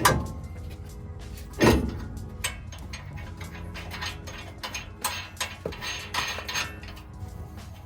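Metal hand tools and brake parts clanking and clicking during front brake and hub reassembly, with two loud metallic clanks that ring briefly, one at the start and one just under two seconds in.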